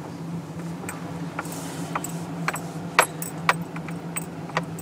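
Car on the move heard from inside the cabin: a steady low hum with scattered light clicks and rattles, the sharpest two about three seconds in and half a second later.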